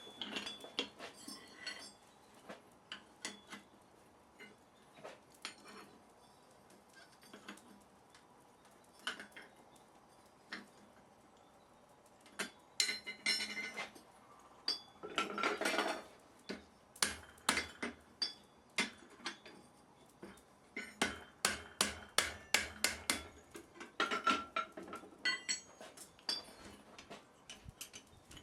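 Light hammer blows on metal at a blacksmith's anvil: scattered single strikes at first, then runs of quick strikes, about three or four a second, with pauses between. About halfway there is a second or so of rasping, like scraping or brushing metal.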